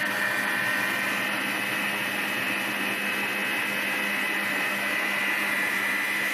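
Black+Decker planetary stand mixer running steadily, its motor giving an even hum and whine that holds one pitch, as it whips instant coffee, sugar and hot water into a thick creamy foam.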